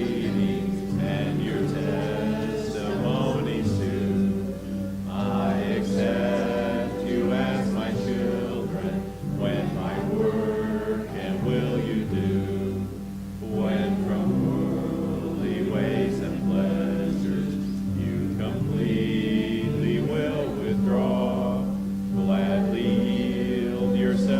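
Congregation singing a hymn together in held, sustained notes, accompanied by piano.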